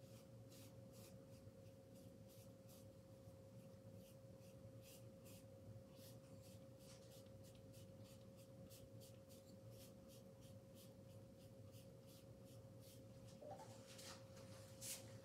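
Faint scratchy strokes of a paintbrush dragged across canvas, short and quick, a few each second, with a couple of louder scrapes near the end. A steady faint hum sounds underneath.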